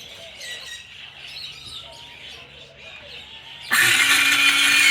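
Birds chirping in the background, then about three and a half seconds in a power saw starts up abruptly and runs loudly, cutting a chalkboard panel.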